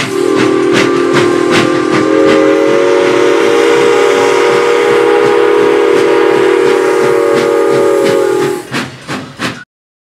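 Canadian National #7470 steam locomotive's chime whistle sounding one long chord blast of several notes, with another note joining about two seconds in, over a regular chuffing beat from its exhaust. The whistle stops shortly before the sound cuts off abruptly near the end.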